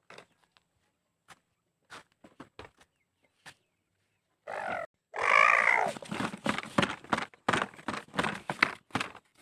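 Scattered short clicks, then a loud, rough roaring or grunting voice that lasts about four seconds.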